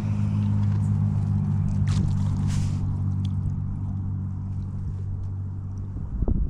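An engine or motor running steadily at a constant pitch, a low hum, with a couple of knocks near the end.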